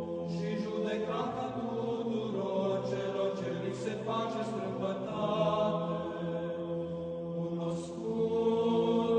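Choir singing Orthodox church chant: slow sustained sung lines that change pitch every second or two over a steady low held note.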